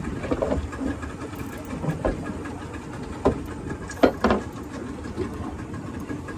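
Boat engine running steadily at low trolling speed, with a few sharp knocks and thumps, the loudest about four seconds in.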